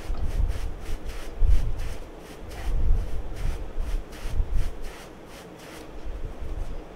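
Hands rubbing and scrubbing vigorously through short freeform dreadlocks, a quick repeated rustle of hair against palms, about three strokes a second, with dull low bumps in between.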